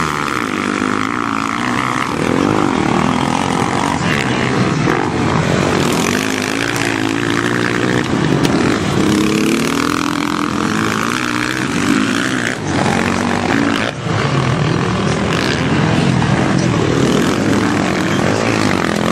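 Motocross dirt-bike engines racing, several at once, revving up and down in overlapping pitches with a brief lull about two-thirds of the way through.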